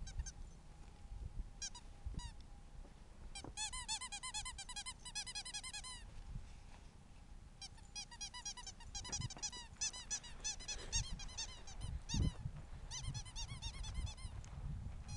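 Ferret dooking: runs of quick, high squeaky clucks, several a second, coming in bursts with short pauses, the excited chatter of a ferret at play. Low thumps of handling and wind underneath.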